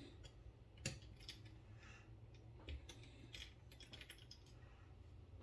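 Faint, irregular small clicks and taps of a T6 Torx driver working the screws of a Benchmade Bugout pocket knife, the sharpest click about a second in.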